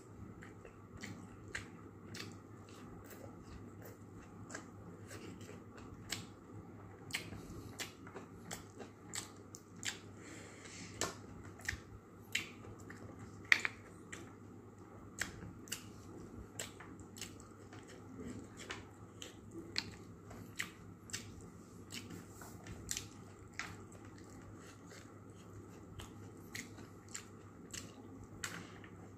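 Person eating by hand: many irregular sharp clicks and smacks of chewing and handling food, one much louder about halfway through, over a faint steady hum.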